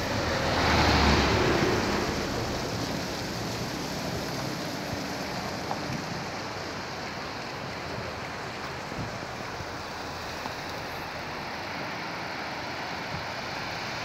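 Steady rushing noise of mountain water and wind, with a louder swell of rushing about a second in that then settles back.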